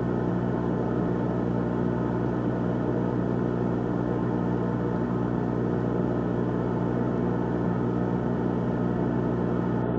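Ambient drone music: a sustained, dark organ-like chord that holds steady with no beat or pauses.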